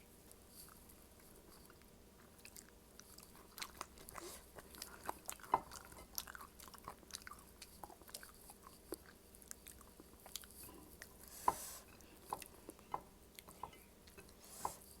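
A person chewing and biting food close to the microphone: irregular wet mouth clicks and soft crunches, with a couple of brief rustling swishes.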